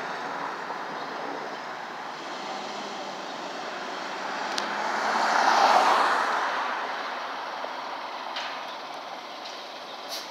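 Fire engine pulling out of its station, its engine running amid street noise: a steady rush that swells to a peak about halfway through and then eases, with a few short clicks near the end.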